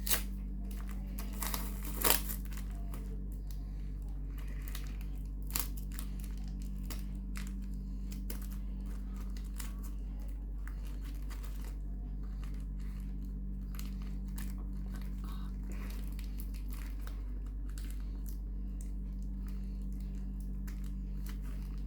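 Parcel packaging crinkling and being torn at by hand, in scattered rustles and a few sharper rips, the loudest about two seconds in. The package is hard to tear open. A steady low hum runs underneath.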